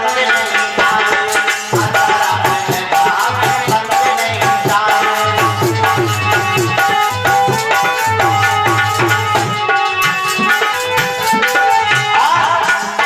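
Instrumental interlude of a Hindi devotional bhajan: a tabla rhythm with deep bass strokes under a sustained melody line, played steadily throughout.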